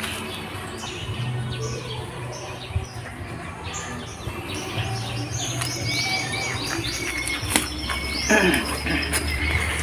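Small birds chirping repeatedly in short, high calls that fall in pitch, over a low hum that comes and goes.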